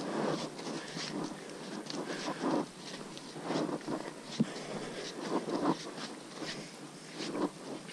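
Footsteps on a hiking trail: irregular scuffing and crunching steps, with a sharp click about four seconds in.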